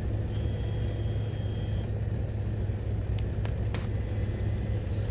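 A car idling with a steady low rumble, heard from inside the cabin. About half a second in, a faint high beep sounds for about a second and a half, and a couple of light clicks follow later.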